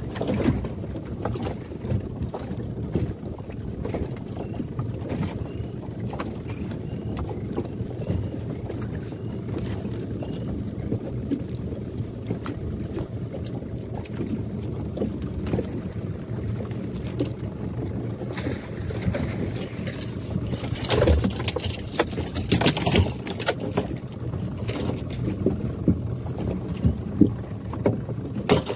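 Yamaha 15 hp outboard motor running steadily as the small boat trolls, with water splashing along the fibreglass hull and wind. Louder splashes come in bursts about two-thirds of the way in.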